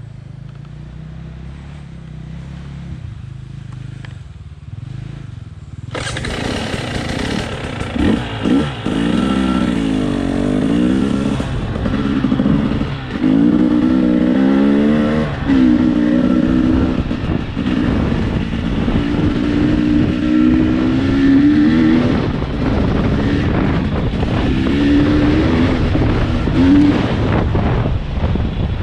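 Off-road motorbike engine, low and quieter at first. About six seconds in it gets suddenly loud, then runs with its pitch repeatedly climbing and dropping as it accelerates and shifts through the gears while being ridden.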